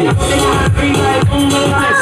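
Dance music with a steady beat, about two beats a second.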